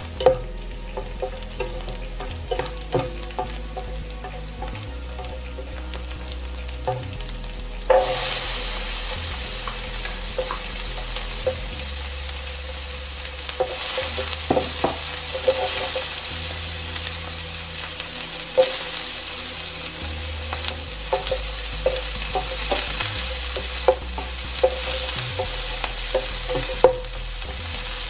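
Oil sizzling in an electric frypan as garlic fries, with a slotted spatula clicking and scraping on the nonstick pan. About eight seconds in, after a loud knock, the sizzle grows suddenly louder as diced red capsicum goes into the hot oil.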